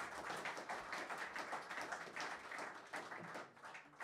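Audience applauding, many hands clapping, the applause thinning out and dying away near the end.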